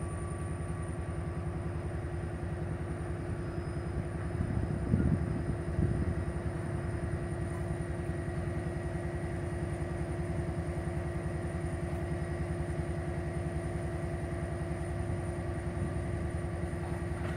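Former Erie Lackawanna passenger coaches rolling slowly along the track over a steady diesel engine drone, with two louder clunks about five and six seconds in.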